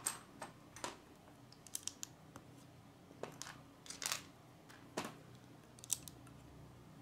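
Small plastic Lego pieces clicking and tapping as they are handled and pressed onto a brick model: a series of short sharp clicks, about one a second.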